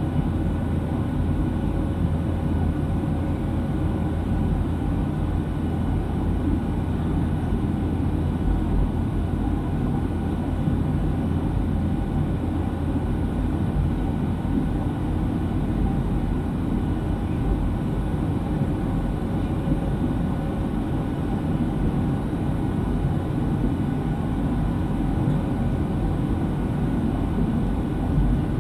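Steady cabin drone of a Boeing 737-700 in flight, heard from a window seat by the wing: the CFM56-7B turbofan engines and the airflow over the fuselage make a loud, even low rumble with faint steady whine tones above it.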